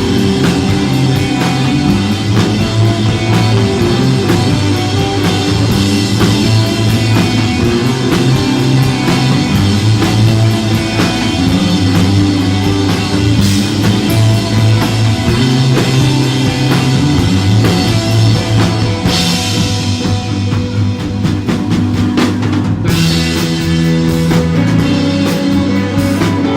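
Instrumental desert rock played live by a band: electric guitar, bass and drum kit.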